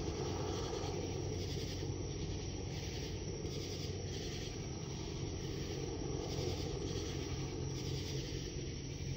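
Boeing AH-64E Apache helicopters flying at a distance: a steady low drone. Over it, night insects call in rhythmic pulses.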